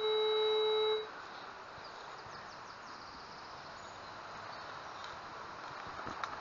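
Metal detector sounding a steady low target tone that cuts off about a second in. After it, faint outdoor background with a few faint high chirps, and a single sharp click near the end.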